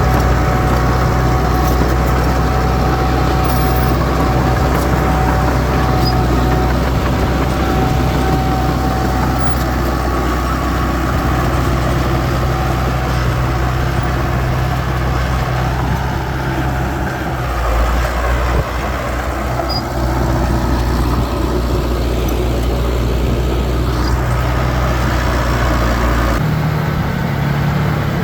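Heavy diesel engine of earthmoving machinery running steadily. Its note shifts about two-thirds of the way through and changes again near the end.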